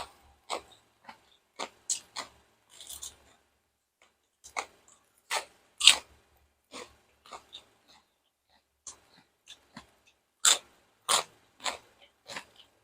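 Close-miked chewing of crunchy food: irregular sharp crunches and mouth smacks, loudest about halfway through and again a little before the end.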